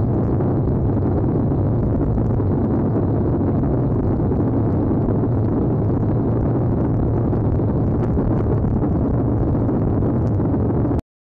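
Steady wind buffeting an action camera's microphone on a road bicycle riding at about 20 mph, a dense low rushing noise with no barks or voices standing out; it cuts off abruptly near the end.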